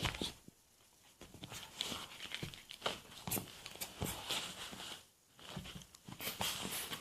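Dog chewing and biting on a squeaky toy: an irregular run of short clicks and crunches, with brief pauses.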